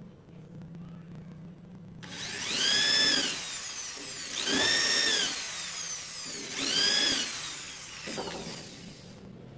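Corded electric hand drill boring into a wooden cabinet door frame, pulled on three times about two seconds apart, its motor whine rising and falling in pitch with each burst. It starts about two seconds in and stops shortly before the end.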